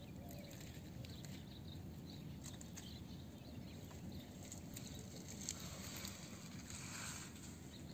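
Quiet outdoor ambience: a steady low rumble with faint scattered ticks and rustles.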